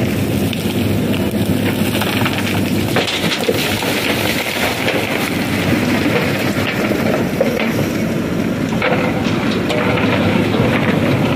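JCB 3DX backhoe loader's four-cylinder diesel engine running steadily under load as the hydraulic backhoe arm works, with a few brief knocks.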